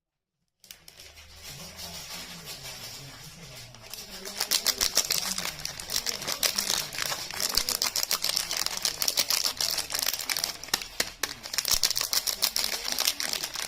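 Packaging being handled and unwrapped, crinkling and crackling as a dense run of small clicks that gets louder about four seconds in.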